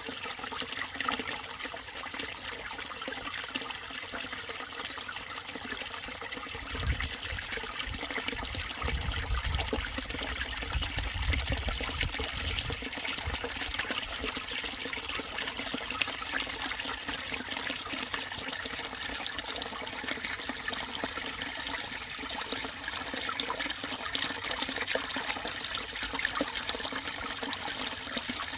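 Small forest stream murmuring and trickling steadily over its bed, with a few brief low rumbles about a quarter of the way through.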